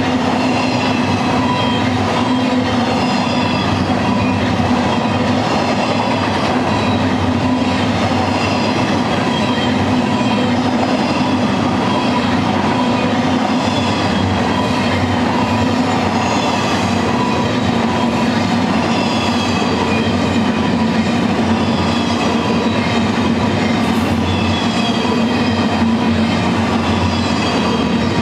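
Double-stack intermodal train of loaded container well cars rolling past at speed: a steady, loud rumble and rattle of steel wheels on rail. Faint high whines slide down in pitch every second or two.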